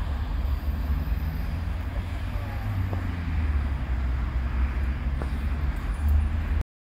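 Road traffic running past at a busy junction, with wind buffeting the microphone; the sound cuts out abruptly just before the end.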